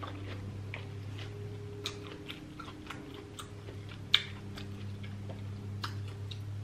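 Close-miked chewing of soft deshelled seafood, with wet mouth clicks scattered through and one sharp click about four seconds in. A steady low hum runs underneath.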